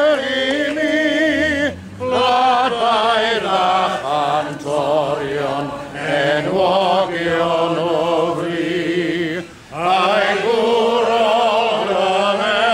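A crowd of people singing together in unison. They hold long, wavering notes in phrases, with two short breaks for breath.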